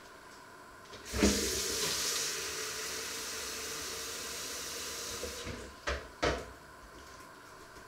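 Kitchen tap turned on and water running into a plastic jug with a steady hiss for about four seconds, then shut off. Two short knocks follow near the end.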